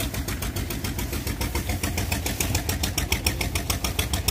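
Engine running steadily with a fast, even knock, about ten beats a second, driving the sugarcane crusher.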